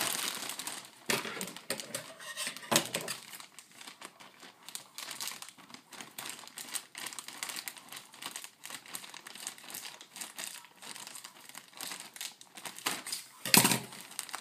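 White plastic mailer bag crinkling and crackling as it is handled and cut open, in irregular bursts, with one loud rustle near the end.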